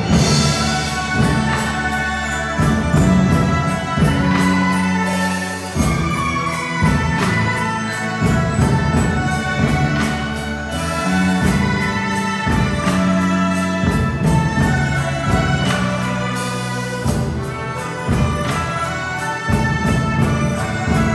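A Chinese traditional orchestra playing live, with bowed erhu among the sustained melody lines over held low notes and a regular beat of sharp strikes.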